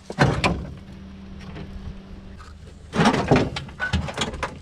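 Car's rear bumper being worked loose and pulled off: a few sharp knocks and clatters, one about half a second in and a cluster near the end, over a steady low hum.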